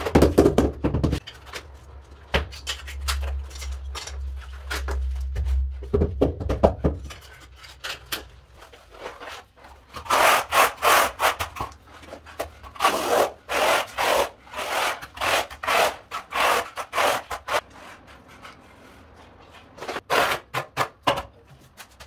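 A few heavy taps of a mallet on a newly laid floor tile at the start. Then a steel trowel scrapes and spreads cement tile adhesive in quick repeated strokes, about two a second, in two runs.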